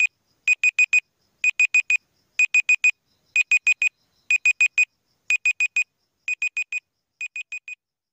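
Electronic countdown-timer beeping: quick groups of four short, high-pitched beeps, one group each second, with the last two groups quieter.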